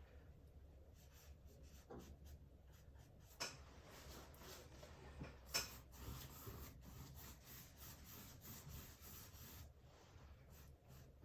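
Faint scratchy strokes of a paintbrush dabbing and dragging acrylic paint across canvas, with a couple of sharper taps.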